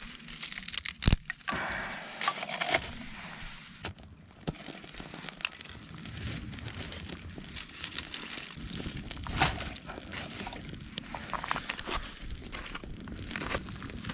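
Rustling and crinkling of something being handled, with many scattered sharp clicks and knocks; the loudest is a sharp knock about a second in.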